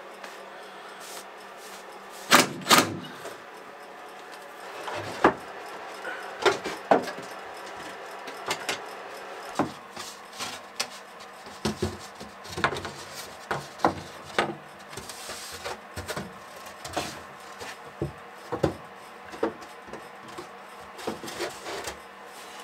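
Plywood panel being handled and fitted into a wooden cabinet opening: a long run of wooden knocks and taps with some scraping of wood on wood, two loud clunks about two and a half seconds in.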